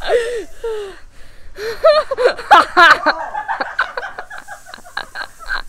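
A boy laughing hard: wavering, high-pitched laughs that turn into a long run of short, quick 'ha' pulses.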